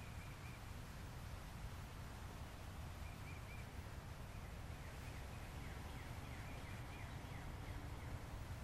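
Faint bird chirps: a few short high notes now and then, and a quicker run of short notes in the second half, over a steady low rumble of background noise.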